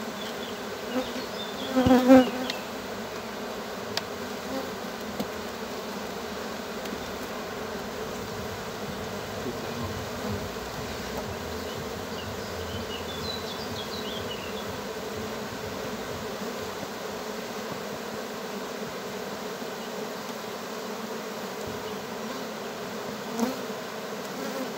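Honeybees buzzing as a steady hum over an open hive. About two seconds in there is a brief, much louder burst, and a few light knocks come later.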